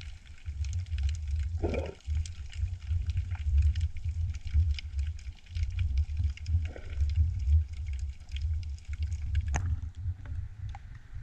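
Muffled underwater sound from a camera in a waterproof housing: a steady low rumble of water moving around it, scattered faint clicks and crackles, and a few short whooshes as the water shifts.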